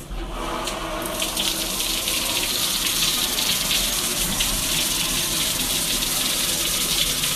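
Push-button spa shower running: a steady rush of spraying water.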